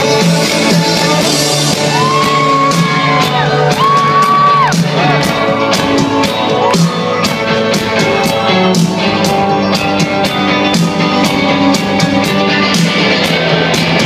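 Live rock band playing loud, with a few long held notes in the first five seconds and then a steady, clear drum beat.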